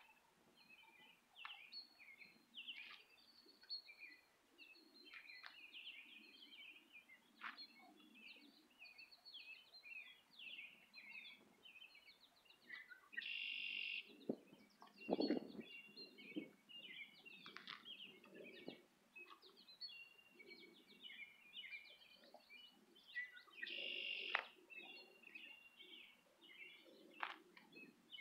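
Several songbirds chirping and trilling in short high calls throughout, with a harsher buzzy call twice, about halfway through and near the end. A single thump sounds just after the halfway point.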